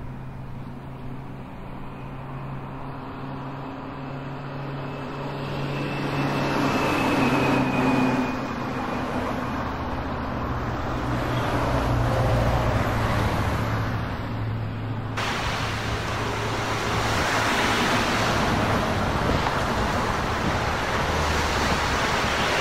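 Outdoor ambience with a steady low engine hum. About fifteen seconds in it changes abruptly to a louder wash of sea surf and wind.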